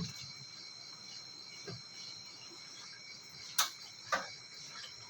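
Crickets chirring steadily, with two short, sharp clicks a little past halfway.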